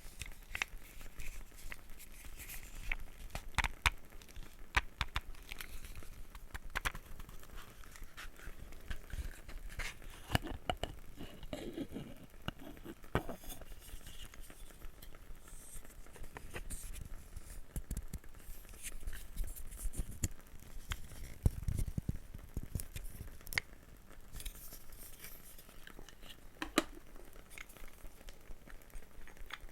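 Small wooden objects being handled close to the microphone: an irregular stream of light taps and clicks with scratching and scraping between them, and a few sharper knocks.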